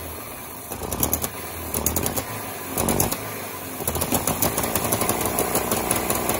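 Trabant 601's air-cooled two-cylinder two-stroke engine running, with a rapid ticking. The owner puts this down to the exhaust primary and cylinder head gasket leaking, because their bolts were under-torqued.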